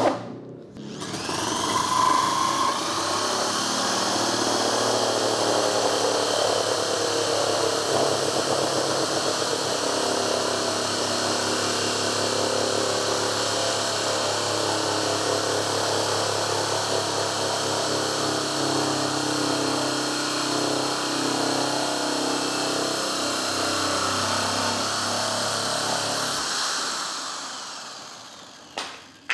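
Corded Ingco electric drill in a drill stand driving a 165 mm holesaw through a plywood board. The motor spins up about a second in and runs steadily while the saw cuts, with the light feed letting it cut through easily. Near the end the drill winds down once the cut is through, followed by a sharp click.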